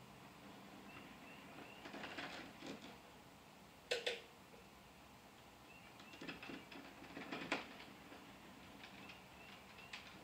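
Light, irregular clicks and clacks of an HO scale model locomotive and freight cars rolling slowly on the track during switching, with one sharper click about four seconds in.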